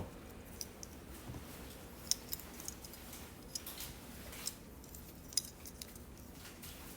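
Faint, scattered small clicks and taps over a low steady hum of room tone.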